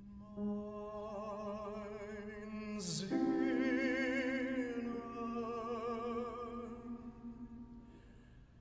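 A baritone singing an operatic German art-song phrase with wide vibrato, accompanied by grand piano. A sharp sibilant consonant comes about three seconds in, followed by a louder held note that fades away near the end.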